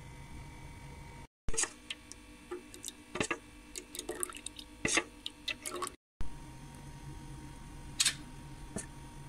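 Irregular light clicks and taps of a utensil against a bowl while a thin egg-and-flour batter is stirred and a spring roll dipped in it, between stretches of steady low room hum.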